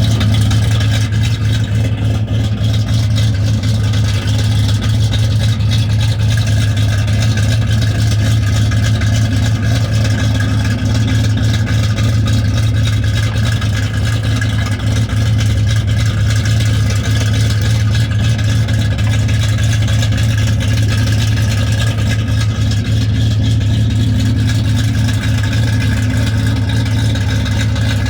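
Logging truck's engine running steadily at an even speed, with no revving.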